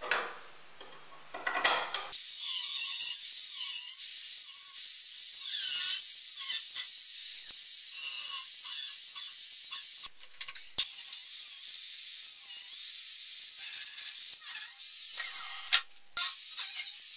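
Angle grinder with a thin cut-off disc cutting through a 5 mm mild steel plate: a steady, hissing, high-pitched grind with a wavering squeal, starting about two seconds in and dropping out briefly twice. Before it, faint scraping of marking out.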